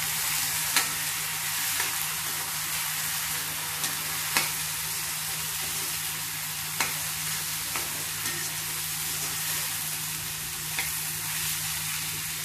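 Cluster beans and moong dal sizzling in a kadai while a steel spoon stirs them, clinking and scraping against the pan every second or two.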